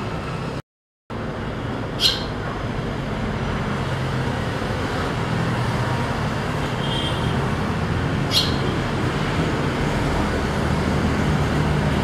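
Steady traffic noise, with two single short, sharp high chirps from a young swallow, one about two seconds in and one near eight seconds. The sound cuts out completely for a moment about half a second in.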